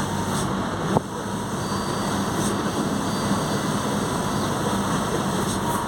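Mercedes-Benz OF-1721 BlueTec 5 bus engine running steadily at high revs, with one sharp click about a second in.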